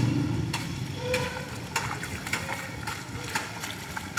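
Heavy rain falling in a steady hiss, broken by irregular sharp taps and splashes. A vehicle engine fades out in the first moments.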